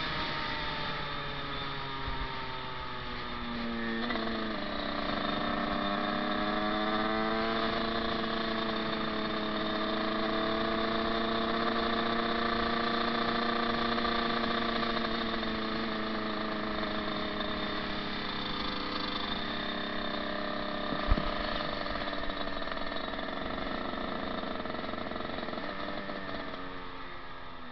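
Dirt bike engine running while riding: its pitch falls, climbs again about four seconds in, then holds fairly steady before dropping near the end, with one sharp click about two-thirds of the way through.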